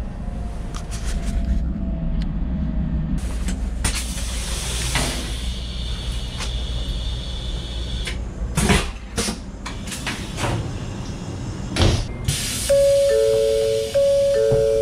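Inside a Shinkansen train: a low steady rumble, then a hissing rush with a steady high whine for a few seconds as the toilet flushes, a few short knocks and clunks, and near the end an electronic chime of two alternating notes.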